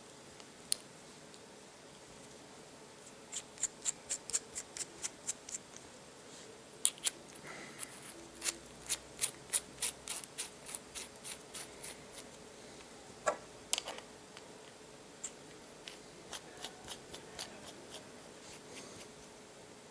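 Runs of quick, light metallic ticks, about four or five a second, as small threaded metal vaping parts (a rebuildable atomizer and a mechanical mod tube) are handled and screwed together. A single louder click comes about two-thirds of the way through.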